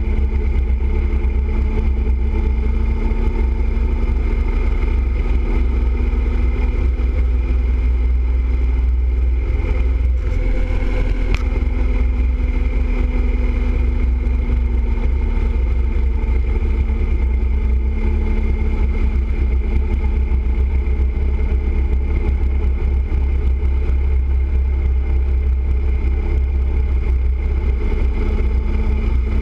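Touring motorcycle cruising at steady highway speed: a continuous engine drone under heavy wind rumble on the bike-mounted microphone.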